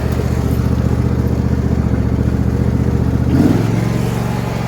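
Engine of a John Deere D125 riding lawnmower running steadily while it tows a load. Its note changes abruptly about three and a half seconds in.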